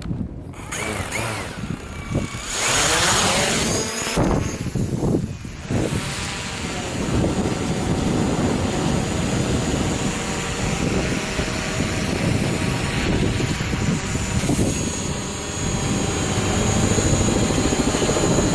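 DJI Mavic Pro quadcopter flying on its stock DJI propellers. Its motors start up about a second in and sweep up and down in pitch for the first few seconds, then settle into a steady propeller buzz with a high whine, a little louder near the end.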